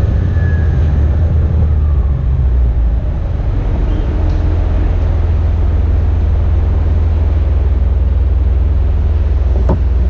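Steady low rumble of the camera vehicle's engine as it slows to a stop and then idles. There is a single sharp click near the end.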